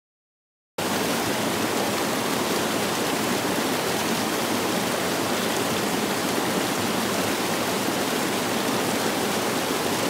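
Small creek cascading over mossy boulders: a steady rush of water that starts abruptly about a second in.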